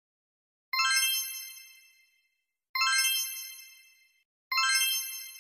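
Three bright chime sound effects, about two seconds apart, each struck suddenly and ringing out with several high pitches that fade over about a second and a half.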